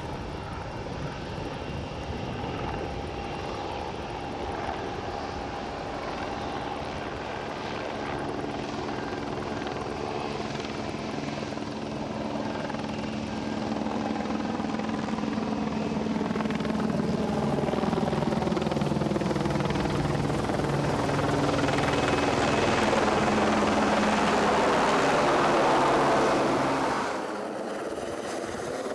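Airbus A220-300's Pratt & Whitney PW1500G geared turbofan engines running at taxi power as the jet rolls by: a steady engine hum that grows louder over the second half, then drops suddenly near the end.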